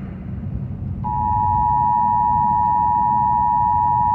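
Emergency Alert System attention signal on AM radio: the two-tone alert, 853 and 960 Hz sounded together, starts about a second in and holds steady at one pitch. It marks the start of a required monthly EAS test. A low rumble runs underneath throughout.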